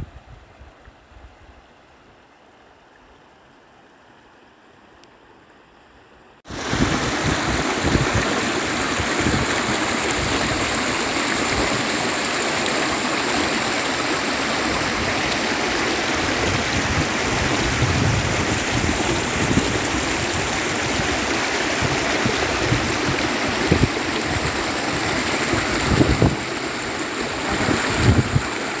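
Rushing water of a stream or small waterfall, a steady loud noise that starts abruptly about six and a half seconds in, after a quiet stretch.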